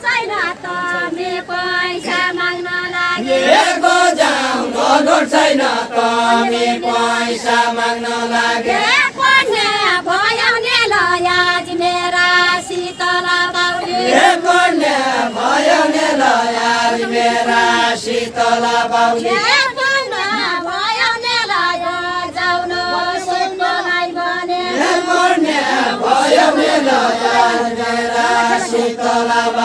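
A group of voices singing a far-western Nepali deuda song in call-and-response phrases, with no instruments. The notes are long and held, in phrases of several seconds that bend in pitch at their ends.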